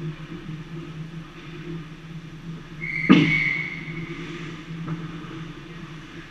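Steady low hum of the ice rink, broken about three seconds in by a sharp knock and a high whistle tone lasting about a second.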